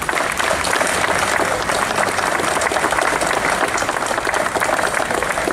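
Audience applauding: the steady, dense clapping of many hands.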